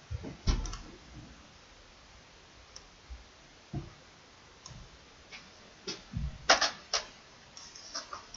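Scattered computer mouse clicks and keystrokes, a dozen or so short sharp clicks spread out, with a quick cluster of them about six and a half to seven seconds in.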